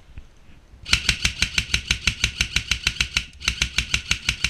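Airsoft gun firing a rapid string of shots, about eight a second, starting about a second in. It pauses briefly a little after three seconds, then fires a second string.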